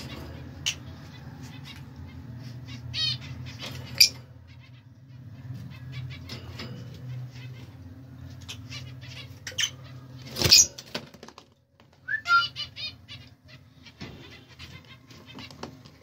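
Fischer's lovebirds and their downy chicks giving short chirps and squeaks, with one loud squawk about two-thirds of the way in, over a steady low hum.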